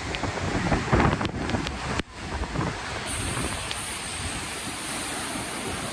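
Storm waves on Lake Michigan crashing and surging against a rocky shoreline cliff, a continuous rushing roar, with strong wind buffeting the microphone. The surge is loudest and most uneven in the first two seconds, drops sharply for a moment about two seconds in, then settles into a steady rush.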